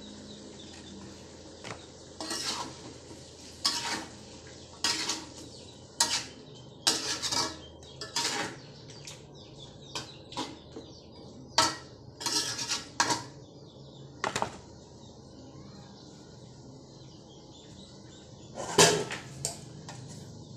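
Metal spatula clanking and scraping against a wok while stirring chicken, in an irregular run of strikes, then a pause and one loud clank near the end.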